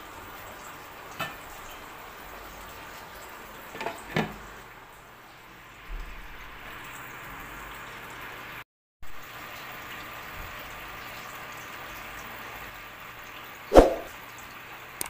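Sauce simmering in a frying pan, a steady low bubbling hiss, broken by a few short clanks: a glass pan lid set on about four seconds in, and a sharp knock, the loudest sound, near the end.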